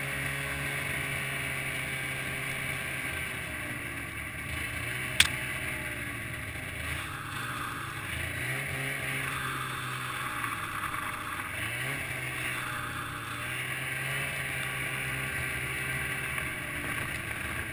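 Snowmobile engine running steadily, its pitch rising and falling with the throttle, with one sharp knock about five seconds in.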